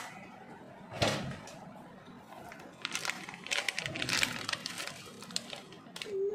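Plastic wrapper of a Cadbury Gems chocolate pack crinkling and tearing as it is opened by hand: one sharp crackle about a second in, then a quick flurry of crinkles from about three to five seconds.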